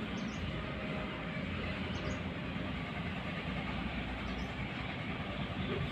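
Steady background noise with no clear rhythm, and three short, faint high chirps spread across it.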